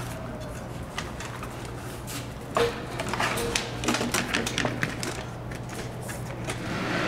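A new suspension bellows being worked onto a Grammer MSG65 seat and the seat being handled: scattered clicks and knocks, with a busier run of knocks and scrapes from about two and a half to five seconds in, over a steady low hum.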